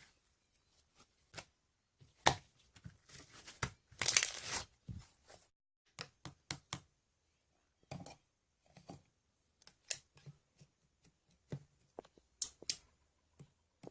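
Slime being handled and stretched: irregular sticky pops and clicks, with a denser crackling stretch about four seconds in.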